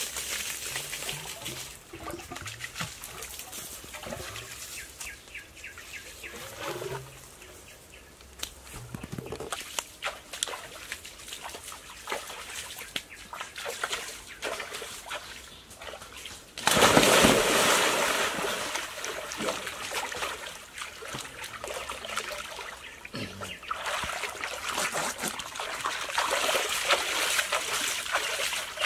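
Water splashing in a small in-ground pool: a pouring, trickling stream at first, then quieter small splashes as hands work the water. About two thirds through, a sudden loud rush of splashing and sloshing begins and carries on as people move about in the water.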